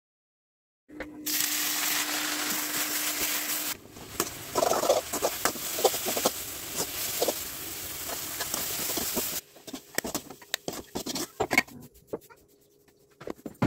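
Kitchen cooking sounds: a loud steady hiss for a few seconds, then a spoon stirring and scraping greens in an aluminium pot with many small clicks. The clicks and knocks thin out and grow quieter in the last few seconds.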